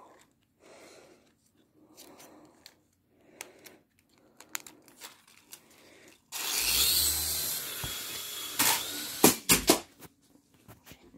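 Faint rustling for the first six seconds, then a flying toy's small propeller motor whirring loudly for about two seconds, followed by several sharp knocks.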